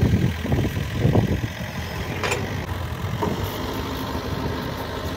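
Heavy machine's diesel engine running, with irregular louder surges in the first second and a half, a sharp click a little after two seconds and a fainter one about a second later.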